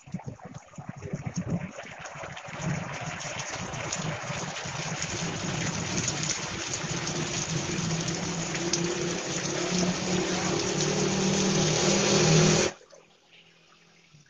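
Heavy rain pouring down: a dense, steady hiss that builds over the first few seconds and slowly grows louder, with a low hum beneath it, then cuts off abruptly about two seconds before the end.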